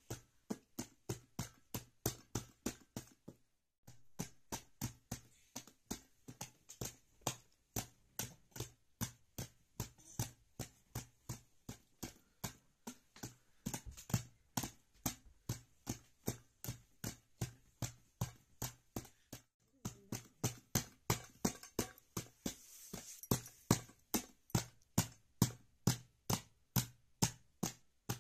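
Steady hand-drum beats in a tabla-style rhythm, about three strokes a second, each with a low ringing resonance. The beat breaks off briefly twice.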